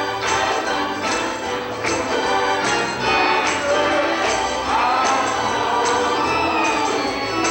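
Gospel choir singing with instrumental accompaniment, over percussion striking a steady beat about once every 0.8 seconds.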